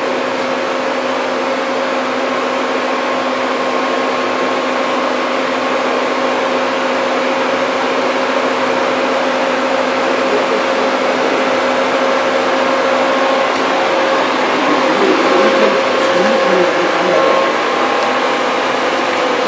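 Hyupshin Drill Master CNC gantry drilling machine running: a steady loud mechanical hum and hiss with a constant whine of fixed pitch.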